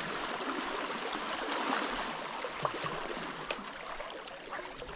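Sea water washing and trickling over shore rocks, a steady rushing with a sharp click about three and a half seconds in.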